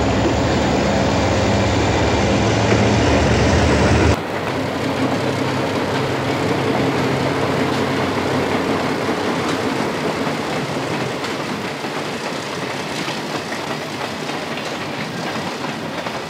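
Diesel locomotives passing with a heavy, steady engine rumble. About four seconds in, the sound cuts abruptly to freight cars rolling past, their wheels clattering on the rails.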